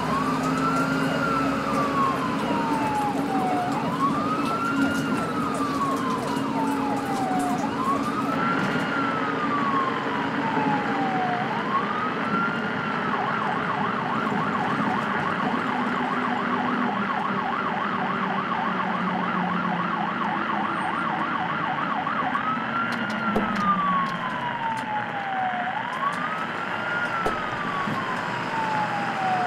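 An emergency-vehicle siren wailing, each cycle rising quickly and falling slowly over about four seconds. For about nine seconds in the middle it switches to a fast yelp of several pitch swings a second, then goes back to the slow wail.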